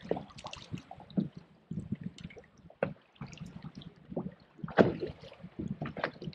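Choppy lake water slapping and splashing against the side of a boat in irregular bursts, with one louder slap just under five seconds in.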